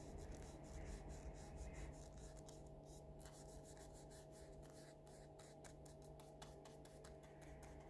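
Faint, irregular little scratches and taps of a thin paintbrush dabbing paint onto paper, over a faint steady hum.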